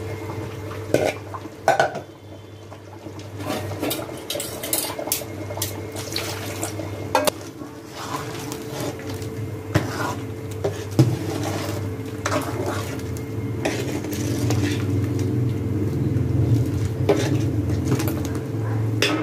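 A steel bowl and utensil clinking and scraping against the rim and sides of a large metal cooking pot, in scattered knocks, as ground coconut-cashew paste is added to the simmering kurma and stirred in. A steady low hum runs underneath.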